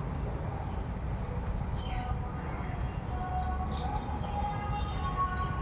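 Steady high insect trilling over a low rumble. About halfway in, a faint drawn-out tone comes in and grows louder.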